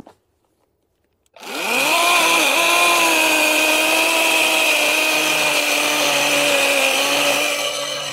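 Cordless Champion chainsaw starting about a second and a half in, its electric motor whining up to speed, then running steadily as the chain cuts down into thick pond ice, its pitch sagging slightly under the load.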